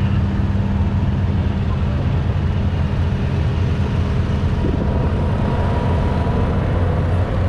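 Utility vehicle's engine running steadily as it drives slowly, a constant low drone with tyre and road noise.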